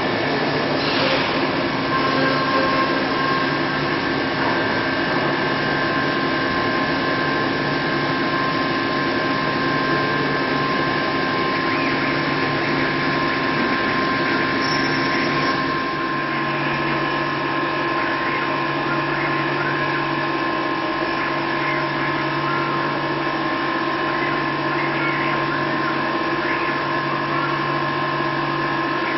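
Parpas ESAGON linear-motor high-speed milling machine cutting metal with a small end mill: a steady whine of several held tones over cutting noise. About halfway through, the low hum begins to pulse.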